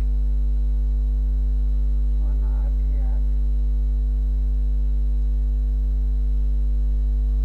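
Steady electrical mains hum, a low constant drone with a ladder of overtones, carried on the recording's audio line.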